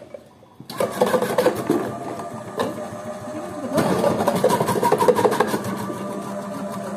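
Electric potato and carrot dicing machine switching on less than a second in and running with a steady motor hum and a rapid clatter from its cutting mechanism. The clatter grows heavier in two stretches, near the start and around the middle.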